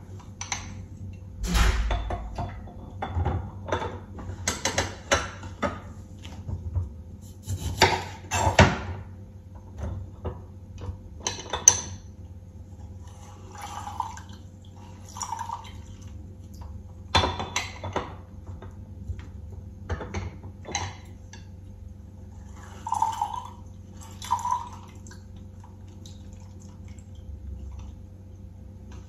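Limes pressed in a yellow handheld lime squeezer over a small glass jar: irregular clicks and knocks as the press is worked and set down, with juice dripping into the jar.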